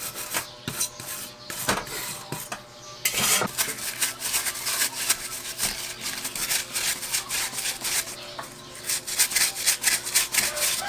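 Brass wire brush scrubbing old silicone gasket off a two-stroke motorcycle crankcase's gasket surface in rapid back-and-forth strokes. The strokes are sparse for the first few seconds, then fast and steady, with a short pause near the end.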